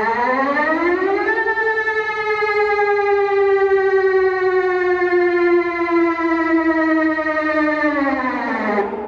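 Civil-defence-style alert siren sounding once. It starts suddenly and rises in pitch over about a second and a half, then holds a slowly sinking tone. Near the end it falls away and cuts off abruptly.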